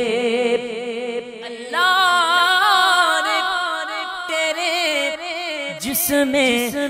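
Unaccompanied naat singing: a male voice holds long, wavering wordless notes between verses, swelling strongly about two seconds in, over a steady sustained vocal layer.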